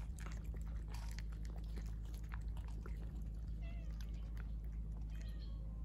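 Stray cats chewing and crunching dry kibble from a bowl: quick, irregular crisp clicks of teeth on the pellets. A few faint short high calls come through briefly, over a steady low hum.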